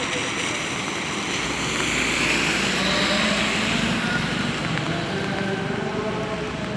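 Steady hiss of rain and a wet street, swelling louder about two to three seconds in as of a vehicle passing on the wet road; a faint chanting voice comes in near the end.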